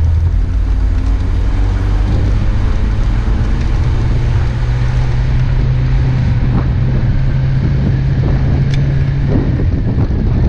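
An off-road 4x4's engine runs steadily as the vehicle drives over snow, with wind noise on the microphone. The engine note rises slightly a few seconds in and falls back near the end.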